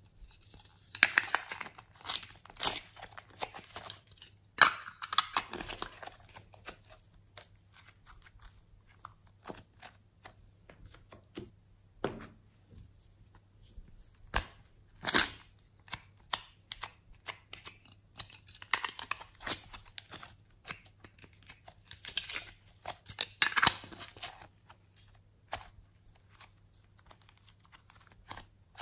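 Soft clay being worked out of thin flexible plastic moulds and handled: scattered clicks and crackles of the plastic, with longer stretches of peeling, tearing sounds, the loudest a few seconds in and again about three quarters of the way through.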